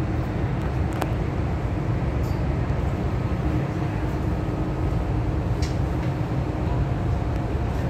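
MTR M-Train electric metro train running, heard from inside the passenger car: a steady low rumble of wheels and running gear, with a couple of faint ticks.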